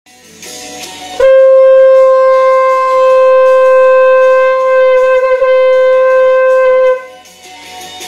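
A shofar blown in one long, steady note lasting about six seconds, with a brief waver near its end, over quieter background music.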